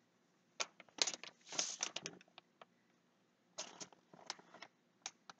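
Short scattered rustles and taps of dry baking ingredients being handled: a dry ingredient shaken from a cardboard box, and a paper sugar bag handled, in two clusters of brief rustles.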